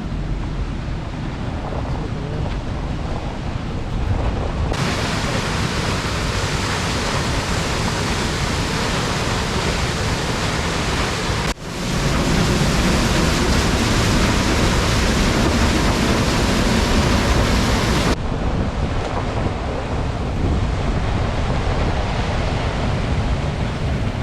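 Klamath River water rushing below the dam: a steady, loud rushing noise. It gets brighter about five seconds in, drops out briefly near the middle, and softens again near the end.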